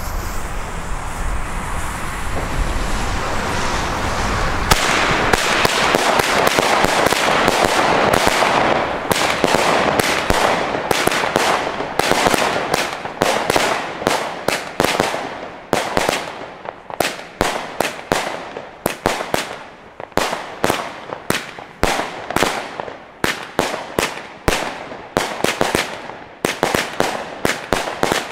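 Xplode 'Leider Geil' firework battery firing. Steady rushing noise gives way about five seconds in to a sudden dense run of shots, which settles into a regular volley of launches and bursts, about two a second, each trailing off.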